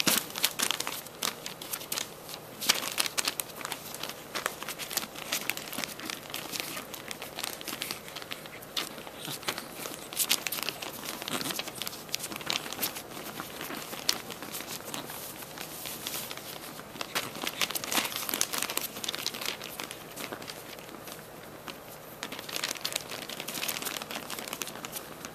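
Crinkly pet play tunnel crackling and rustling as Chihuahua puppies move in and against it, in irregular bursts of crinkling.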